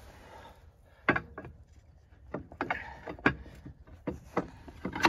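Irregular sharp metal clicks and knocks from a hand-turned track pin press being wound along its threaded rods, about eight spread over a few seconds.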